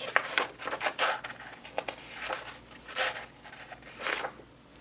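Handling of a CD album's paper and plastic contents: a series of short rustles and light clicks.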